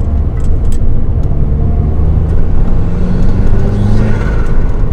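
Subaru WRX's turbocharged flat-four engine accelerating under load on a test pull, its note climbing steadily in pitch through the middle of the clip. A faint thin whistle rises along with it near the end.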